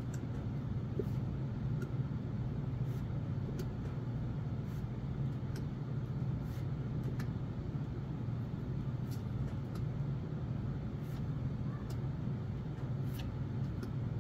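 Steady low room hum, with faint scattered clicks and ticks of trading cards being handled and flipped through one by one.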